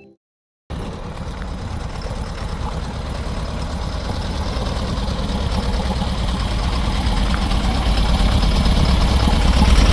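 Cummins ISF 3.8 four-cylinder diesel in a JAC N80 truck idling with a knock. It starts just under a second in and grows slowly louder. The knock comes from the first cylinder: a rocker arm there has come off, so its exhaust valves do not open, and the fuel its injector sprays does not fire.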